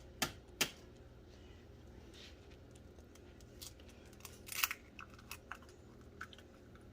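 Eggshells being tapped and cracked: a couple of sharp clicks at the start, a short crackling crunch about four and a half seconds in, and scattered small ticks.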